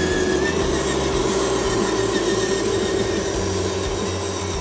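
Electric motor and gearbox of a radio-controlled 'Globe Liner' cab-over truck whining steadily as it drives through mud.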